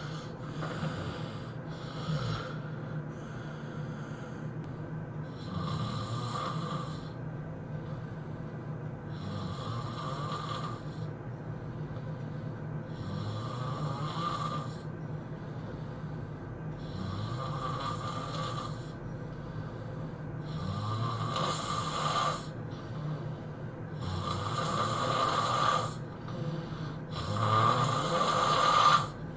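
A person snoring heavily and rhythmically, a loud rasping breath about every three and a half seconds over a steady low drone. The snores grow louder toward the end.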